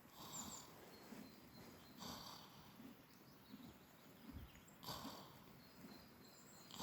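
Manx Loaghtan sheep snoring softly in its sleep: a faint, delicate breathy snore about every two to three seconds.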